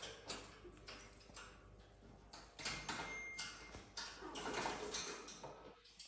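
Irregular light clicks and taps on a wire birdcage as a cockatoo climbs over it, gripping the bars with its beak and claws.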